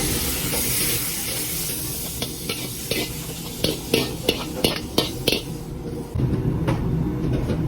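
Food sizzling in a hot pan, with a utensil knocking against the pan about eight times over a few seconds while stirring. The sizzle stops about six seconds in and a low steady hum takes over.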